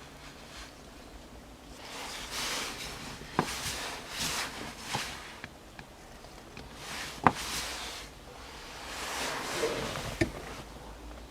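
Hand work on a gear-shift lever support and its new bushings: rustling and scraping of the parts being handled, with three sharp clicks, the loudest a little past the middle.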